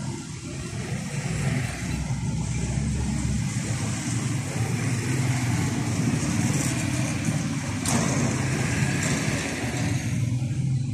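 Steady low engine rumble and traffic noise from motor vehicles running nearby, with a single sharp click about eight seconds in.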